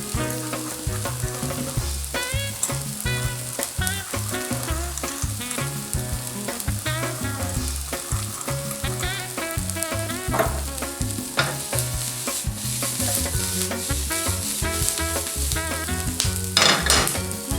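Sliced onions sizzling as they fry in a pan, stirred now and then, with background music underneath.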